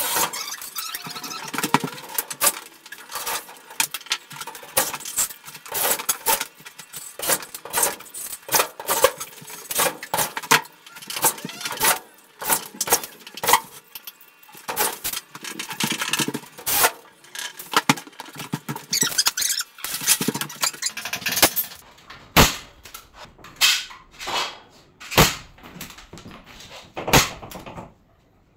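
Metal ceiling track for a drywall partition frame being handled and fitted overhead: a rapid, irregular run of clicks, knocks and metal squeaks, thinning out to fewer, separate sharp knocks over the last several seconds.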